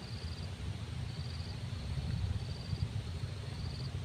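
An insect, cricket-like, calling in short high trills about half a second long, repeating roughly every second and a bit, four times. A loud, uneven low rumble runs underneath.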